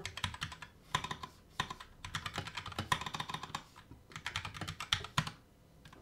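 Typing on an FL Esports 68-key mechanical keyboard with Kailh Box Red linear switches and PBT keycaps: a quick, uneven run of keystrokes that eases a little about four seconds in and stops shortly before the end.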